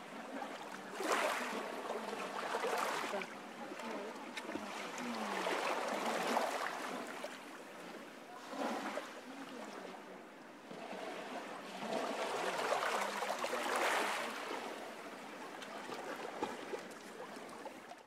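Ocean surf: waves breaking and washing up the shore in a steady hiss that swells and falls back every few seconds.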